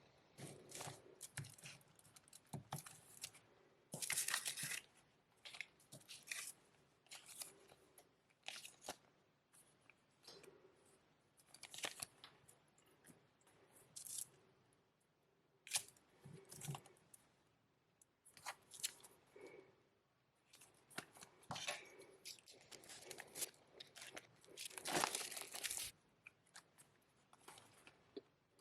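Plastic wrapping on a CD package being torn and peeled off by hand: irregular, faint crinkling and tearing, with louder bursts about four seconds in and near the end.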